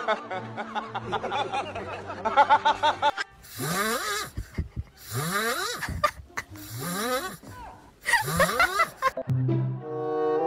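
Snoring, four breaths about a second and a half apart, each rising into a whistle. It follows a few seconds of music and voices, and a steady musical chord comes in near the end.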